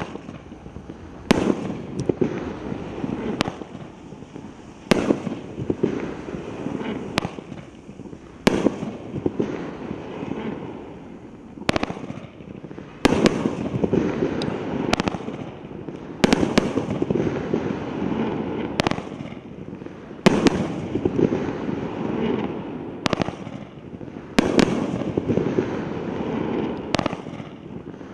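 A 500-gram consumer fireworks cake (Megabanger 'Torment', 23 shots) firing aerial shells that burst overhead: a sharp bang every second or two, sometimes two close together, with a continuous noisy haze between the bangs and a short lull partway through.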